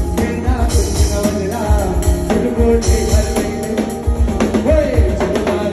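Live band music: male vocals over strummed acoustic guitar, with a steady drum beat and cymbal hits.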